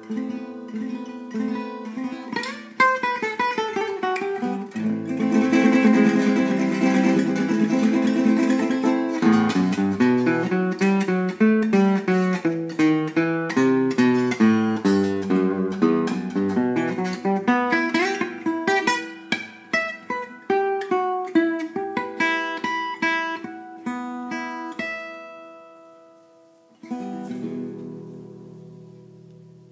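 Old gypsy-jazz acoustic guitar played solo in a free improvisation: strummed chords, then runs of single picked notes that thin out and fade. One last chord is struck near the end and left to ring.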